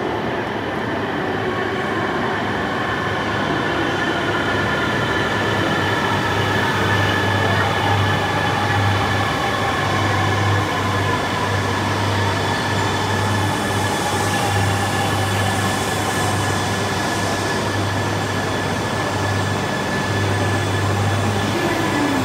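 Series E3 Shinkansen pulling in along an underground station platform and braking. Its motors whine with a slowly falling pitch over a steady rumble and a low hum that swells and fades.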